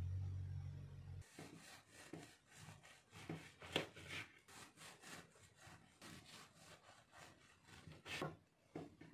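Knife sawing back and forth through a loaf of flaxseed bread on a plastic cutting board, a steady run of rasping strokes about three a second, a few of them louder. A low steady hum fills the first second or so and stops abruptly before the cutting starts.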